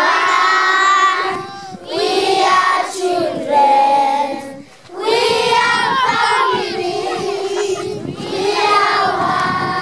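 A group of children singing a song together, in sung phrases with a couple of short breaks between them.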